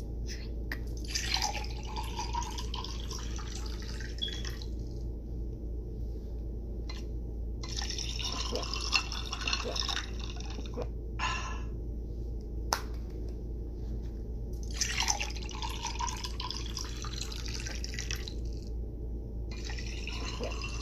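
Children whispering close to a phone microphone in four bursts of a few seconds each, with a few sharp clicks and mouth noises between them, over a steady low hum.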